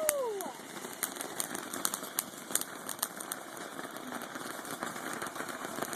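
Consumer ground firework crackling: irregular sharp pops and clicks over a steady hiss.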